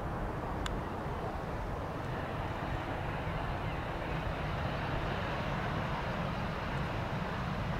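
Distant airliner jet engines running steadily as the plane taxis onto the runway to line up: a low, even rumble and hiss.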